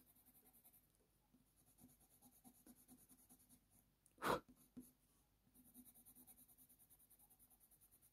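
Faint scratching of a white Faber-Castell Polychromos colour pencil pressed hard over hot-press watercolour paper, burnishing the layers underneath. About four seconds in there is one short, louder sound.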